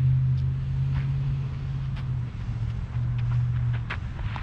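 A steady low engine hum over wind rumbling on the microphone. The hum drops out a little after two seconds, returns about a second later, and stops near the end.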